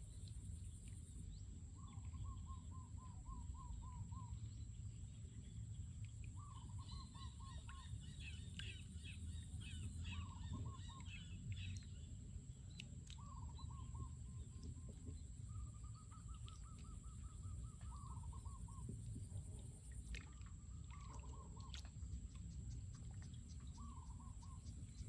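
Birds calling: about eight short runs of quick repeated calls, each lasting one to two seconds, with a burst of higher twittering in the middle.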